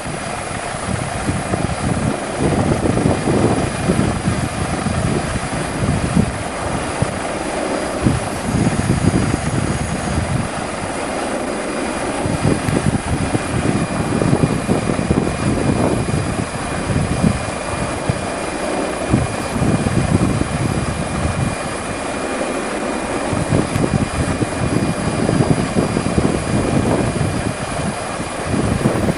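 Helicopter engine and rotor noise heard from on board the helicopter, steady throughout, with a faint steady high whine.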